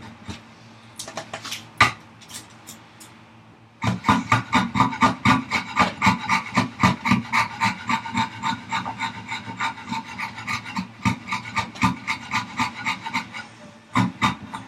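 Hand rasp worked on wood in rapid back-and-forth strokes, widening the opening in a wooden vise chop so it clears the guide rods. A few lighter scrapes and a single knock come first, and the steady rasping starts about four seconds in and stops shortly before the end.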